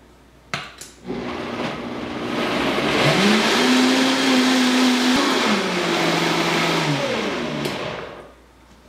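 High-speed countertop blender puréeing coconut flesh, soaked dates and almond milk into a thick coconut yogurt. It starts about a second in, speeds up to a higher whine around three seconds, drops to a lower speed just after five seconds, then winds down and stops near the end.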